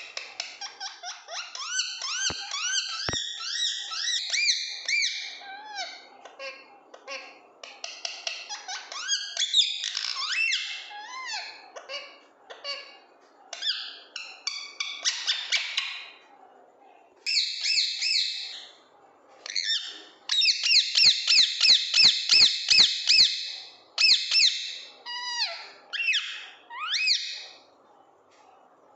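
Parrot calling in high-pitched, squeaky chirps that rise and fall, coming in runs with short pauses. About two-thirds through there is a fast run of about five chirps a second, and near the end a rising squeak.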